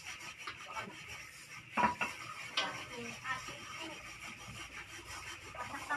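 Clatter of metal pots, basins and utensils being handled, with irregular knocks and a louder clank a little under two seconds in.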